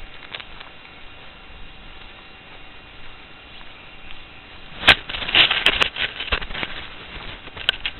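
A steady faint hiss, then a single sharp crack about five seconds in, followed by about a second and a half of crackling and rustling and one more sharp click near the end.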